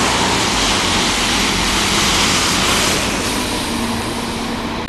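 City street traffic on a wet road: a steady hiss of tyres on wet tarmac over the low running of double-decker bus engines. The sound shifts about three seconds in, and a steady engine hum comes in shortly after.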